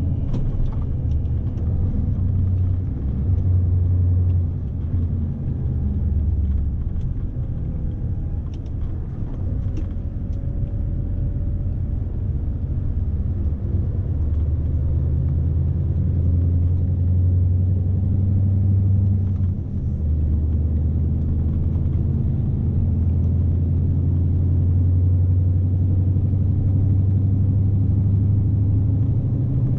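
Scania S520's V8 diesel engine running under load with tyre and road rumble, heard inside the truck's cab. The deep engine drone eases off a few seconds in, picks up again around the middle, and dips briefly shortly after.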